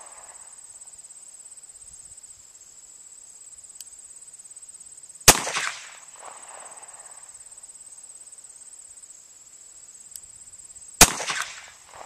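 Two shots from a 1970s-era Smith & Wesson revolver fired double action, about six seconds apart, each followed by a short echo. Insects chirr steadily and high-pitched underneath.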